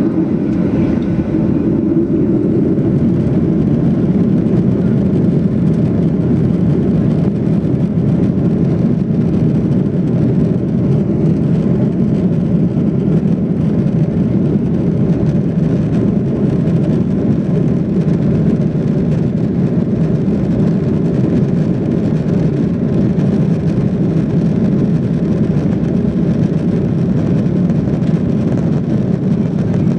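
Steady, low cabin drone of a Boeing 737-800 taxiing, its CFM56-7B engines at low taxi power, heard from inside the cabin over the wing.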